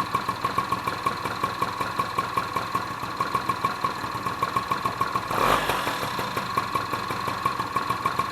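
Honda Joker scooter's two-stroke engine idling, with a regular pulsing beat of about five a second. There is a brief louder rush about five and a half seconds in.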